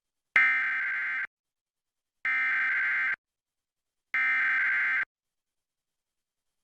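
Emergency Alert System SAME header data tones opening a Required Weekly Test: three identical bursts of rapid digital data tones, each just under a second long, about a second apart. This is the encoded header that tells alert receivers what kind of message follows.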